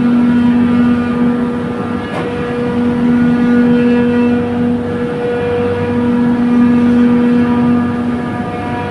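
Trane chiller compressor running: a loud, steady mechanical hum with a pitched drone and its overtones, swelling and easing slightly.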